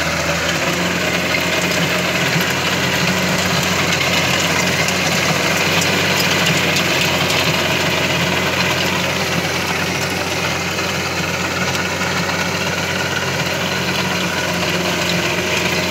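Diesel engine of a VST Mitsubishi 27 hp compact tractor running steadily while it drives a rear rotary tiller through the soil.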